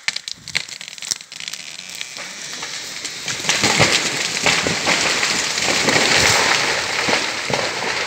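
Felled beech tree going over: cracking and snapping of branches that builds into a long crash from about three and a half seconds in, as the crown tears through the neighbouring trees, takes a pine down with it, and hits the forest floor.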